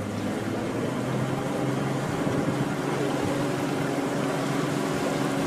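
Boat engine running steadily: a low drone with an even hiss over it.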